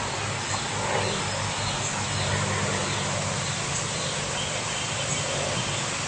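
Outdoor ambience: a steady low hum under an even hiss, with faint short high chirps about every second and a half.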